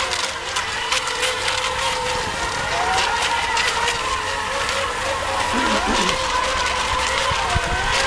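Several electric RC racing boats running in a pack: their motors give a steady whine of several held pitches, with a few bending up and down as boats turn, over a constant hiss.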